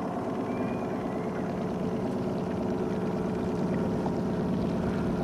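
A boat's outboard motor running steadily at low trolling speed, an even hum.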